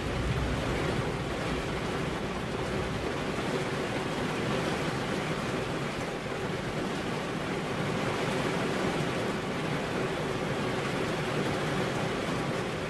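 Steady rain falling, an even hiss with no single drops or thunder standing out.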